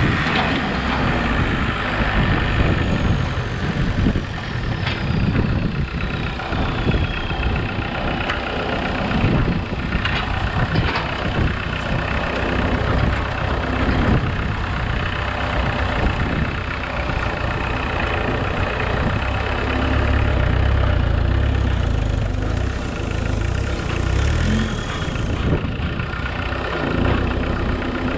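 Engine of a homemade 4x4 tractor running steadily while it drives and works its front loader into a soil heap. The low engine note gets heavier about two-thirds of the way in.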